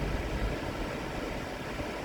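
Steady low rumble and hiss of a running vehicle, even in level throughout.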